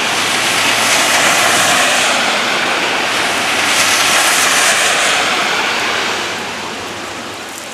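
Motorcade vehicles' tyres hissing through water on a rain-soaked road as they pass one after another, in a few swells of noise. The hiss fades away over the last couple of seconds as the last vehicle goes.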